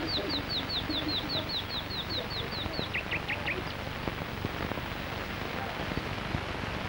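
A small songbird singing a rapid run of short falling chirps, about six a second, for roughly three seconds, then four lower chirps, over a steady hiss.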